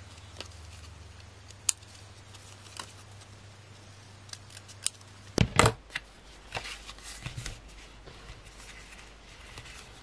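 A few sharp snips of scissors cutting through thin cardstock die cuts, then a louder double knock about halfway through and light paper handling after it.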